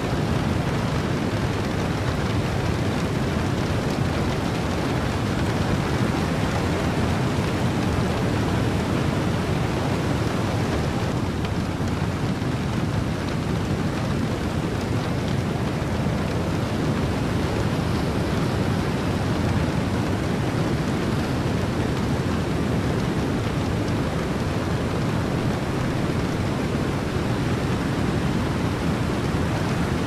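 Steady rain mixed with ocean wind and surf: an even, unbroken wash of noise, heaviest in the low range.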